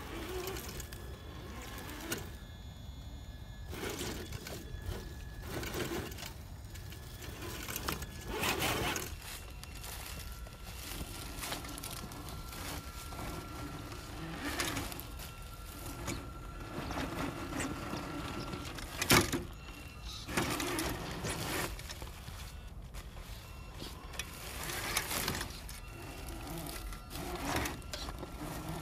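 Traxxas TRX-4 RC crawler's small electric motor and geared drivetrain whirring in short runs as it crawls over rocks, with dry leaves crunching and rustling under its tyres. A single sharp knock about 19 seconds in is the loudest sound.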